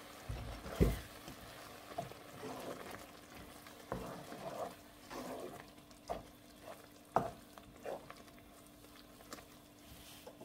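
Wooden spatula stirring and scraping through a thick, creamy prawn and spinach sauce simmering in a nonstick frying pan, with several sharp knocks of the spatula against the pan. A heavy thump about a second in is the loudest sound.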